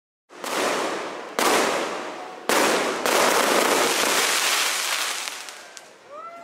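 Aerial fireworks going off: three sudden bursts about a second apart, each followed by a long crackling hiss that slowly fades.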